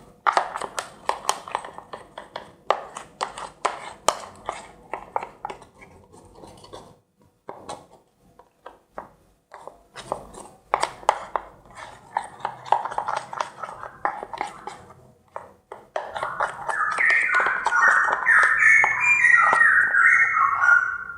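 Thick soap-based slime mixture being stirred in a bowl: a quick run of sticky clicks and squelches, stopping for a couple of seconds about a third of the way in and then starting again. In the last few seconds a loud run of short, stepped high notes joins in.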